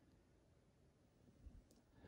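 Near silence: room tone, with one faint, brief sound about one and a half seconds in.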